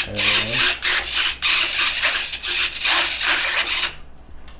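Servos of a Freewing F-22 foam RC jet driving its all-moving tail surfaces back and forth as elevator, a rapid string of short raspy whirs that stops about four seconds in.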